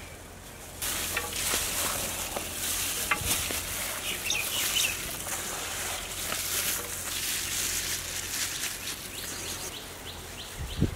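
Gloved hands mixing boiled potato fingers through batter in a large metal pot: a continuous, irregular wet stirring noise with many small ticks, starting about a second in.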